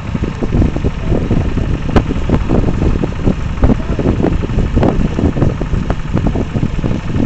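Porsche-Diesel tractor's air-cooled diesel engine running under load while pulling a plough.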